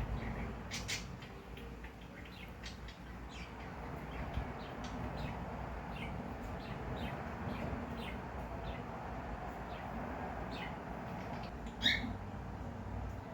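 Cockatiels giving short, high chirps at irregular intervals, with one louder chirp near the end, over a steady low room hum.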